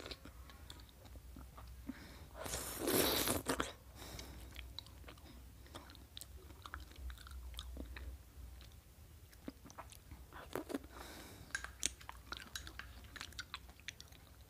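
Close-up mukbang eating sounds of soft dragon fruit ice cream with fruit pieces: wet chewing and mouth clicks. A louder noisy rush comes about three seconds in, and the clicks grow busier over the last few seconds as a plastic spoon scoops from the bowl.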